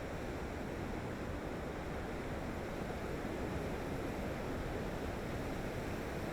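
Gentle ocean waves lapping against the shore: a steady, even surf wash with no single breaking crash standing out.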